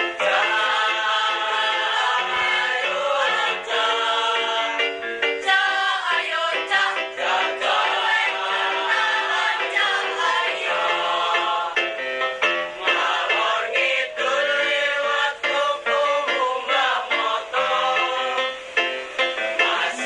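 A choir of boys and girls singing an ethnic Indonesian choral piece, several voice parts at once.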